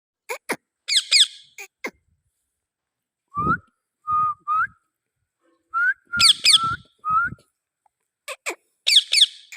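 Pet parrot calling in short bouts: quick, sharp chirps alternate with short whistled notes that glide upward, with brief pauses between the groups.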